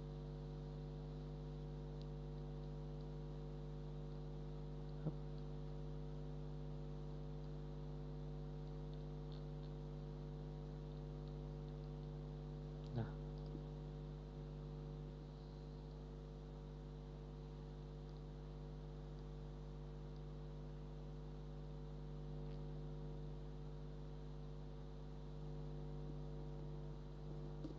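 Steady low electrical hum with several fixed tones, running evenly throughout, with two faint clicks about five and thirteen seconds in.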